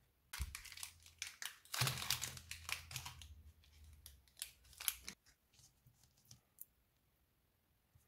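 Plastic candy wrappers crinkling and rustling as wrapped sweets are handled, with scattered sharp clicks; busiest in the first few seconds, dying away to a few faint clicks after about five seconds.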